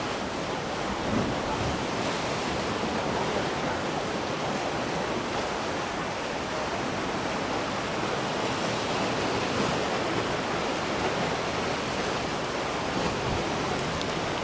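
A steady outdoor rushing noise, even and unbroken, with no distinct single source standing out.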